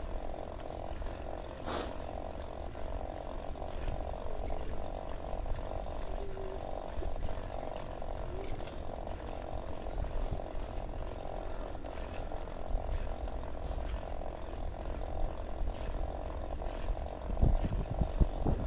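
Bicycle rolling along a paved cycle path: a steady, evenly pulsing whirr from the moving bike, with low wind rumble on the microphone that grows near the end.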